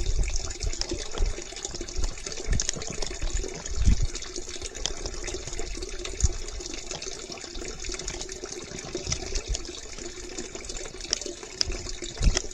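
Steady rush of running water, with low wind buffeting on the microphone.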